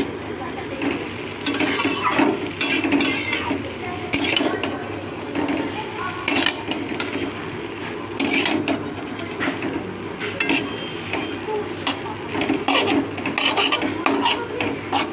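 Chow mein being stir-fried in a pan: a spatula scraping and knocking against the pan in irregular strokes over a light sizzle.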